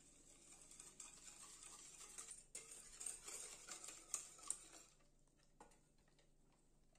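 Wire whisk stirring a cocoa mixture in an enamel saucepan, its wires ticking and scraping rapidly against the pan. The stirring is faint and stops about five seconds in.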